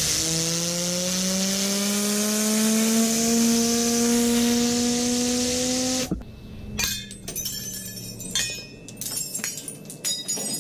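Compressed-air blow gun hissing at a fidget spinner held in a cup, the spinner's hum rising steadily in pitch as it speeds up. About six seconds in, the air cuts off abruptly and the spinner's fainter hum fades out amid scattered clicks and knocks.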